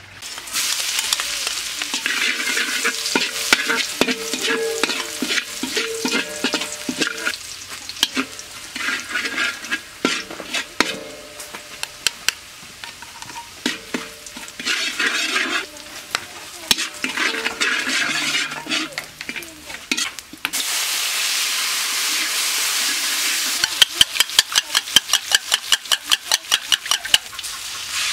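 Chopped garlic sizzling in hot oil in a steel wok, stirred with a metal ladle that scrapes and clicks against the pan. Toward the end the sizzle gets steadier and louder, with a run of quick ladle taps, about four or five a second.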